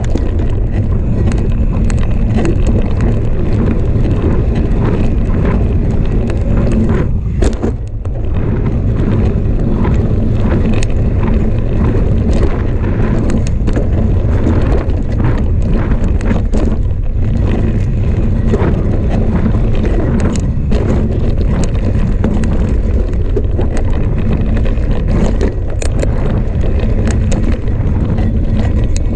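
Specialized Enduro Comp mountain bike descending a dirt trail at speed: loud, steady wind noise on the microphone over the tyres on dirt, with frequent clicks and rattles from the bike. The sound drops briefly about seven seconds in.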